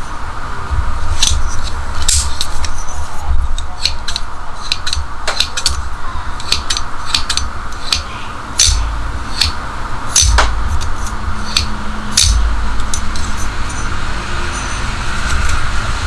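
Sharp metallic clicks of a Nextool Huohou multitool as its scissors are unfolded from the handle and the blades opened and closed. The clicks come irregularly, many over the stretch, over a low rumble.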